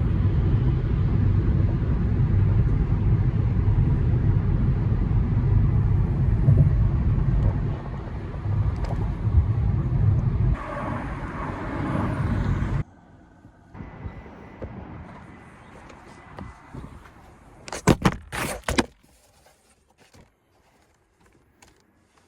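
Car on the move: a steady low road-and-engine rumble that cuts off abruptly about thirteen seconds in. What follows is much quieter, with a few sharp knocks close together near eighteen seconds.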